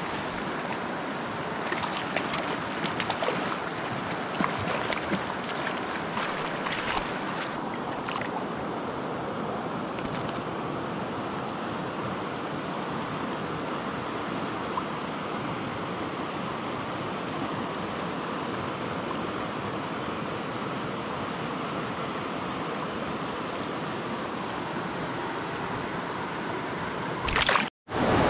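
Clear mountain stream running over rocks, a steady rush of water, with scattered small clicks and splashes in the first several seconds. Near the end the sound cuts out for a moment, then a louder rush of whitewater rapids.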